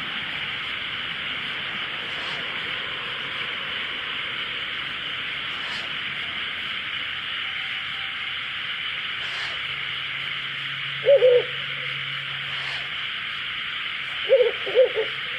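Ural owl hooting: a short double hoot about eleven seconds in, then three more short hoots near the end, over a steady hiss.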